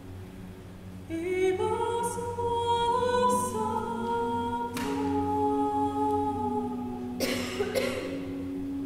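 A female solo voice sings a slow melody over a steady held low drone. The voice enters with a rising glide about a second in and holds long notes, and sharp sibilant consonants cut through near the middle and near the end.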